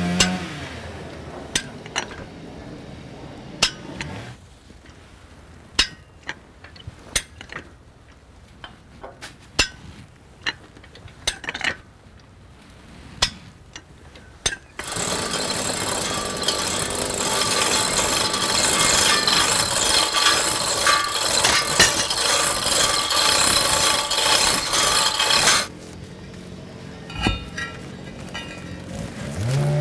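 Metal hand-tool work on a steel beam: scattered sharp clicks and knocks. About halfway a loud continuous rasping machine noise starts, runs for about ten seconds and cuts off suddenly.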